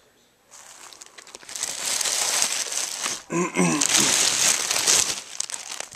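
Packaging crinkling and rustling as it is handled and pulled off a new subwoofer, loud from about a second and a half in until near the end, with a brief voice sound about halfway through.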